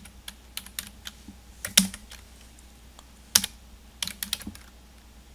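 Computer keyboard being typed on: sparse, irregular key clicks, with two louder keystrokes about two and three and a half seconds in.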